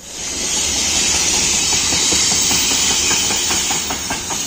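Freight train of covered hopper wagons rolling past at speed: a steady rumble and hiss of wheels on rail, with a run of quick wheel clicks over the rail joints in the second half.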